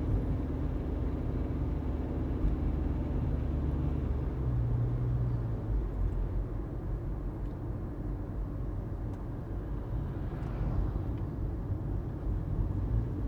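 Car driving along a road: a steady low rumble of engine and tyres with road hiss, heard from inside the moving car.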